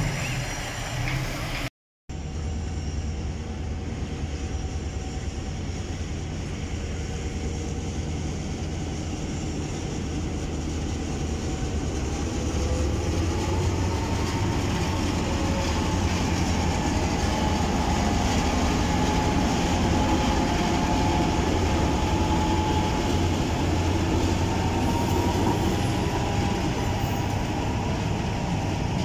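Transnet Class 36-200 EMD diesel-electric locomotives running with a steady low rumble as they pull grain wagons past at close range. They grow louder about halfway through, when a steady high tone joins the rumble.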